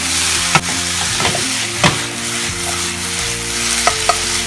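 Celery, carrot and mushrooms sizzling in a hot frying pan as they are stir-fried. The spatula knocks and scrapes against the pan several times, loudest about half a second in and again near two seconds.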